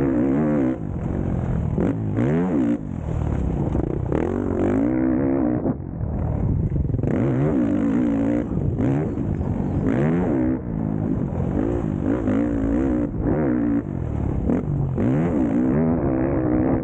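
Motocross bike engine at race pace, revving hard and dropping back again and again as the rider opens and shuts the throttle and shifts through the gears.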